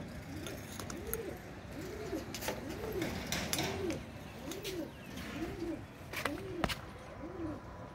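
Domestic pigeons cooing: a steady run of low coos, each rising and falling in pitch, roughly one a second. A few sharp clicks are scattered among them.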